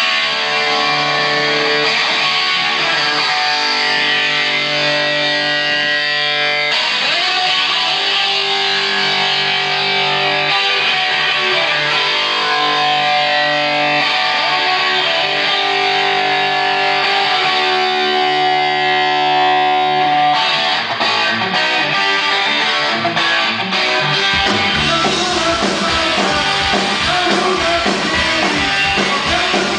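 Live rock band: a distorted electric guitar plays sustained chords alone at first. About twenty seconds in it switches to choppy rhythmic strumming, and a few seconds later bass and drums come in with a driving beat.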